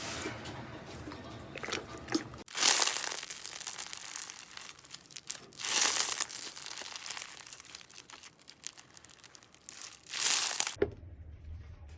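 Crunchy slime being pressed and squeezed, crackling and popping, with three louder crunches a few seconds apart; it cuts off suddenly near the end.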